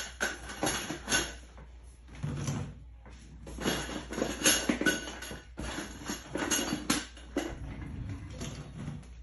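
Irregular clicks, knocks and rustling from hands assembling a fabric portable closet: white plastic connectors being fitted onto the frame tubes and the fabric shelves handled.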